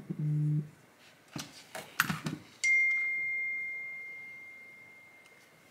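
A phone buzzing briefly on vibrate with an incoming text, then a few clicks of handling. Near the middle comes a single bell-like chime at one clear pitch that rings out slowly over about three seconds.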